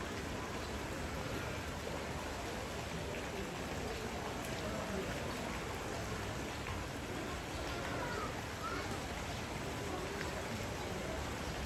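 Steady rushing of water in a polar bear's zoo pool, an even noise without distinct splashes, with faint voices in the background.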